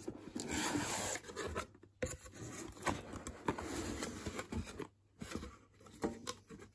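Cardboard mailer box being opened by hand: cardboard scraping and rubbing as the tuck-in lid is worked free and folded back, with a few light taps, quieter near the end.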